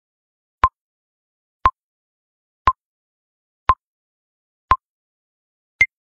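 TikTok camera self-timer counting down: short electronic beeps about once a second. The beep near the end is higher in pitch, marking the final three seconds of the count.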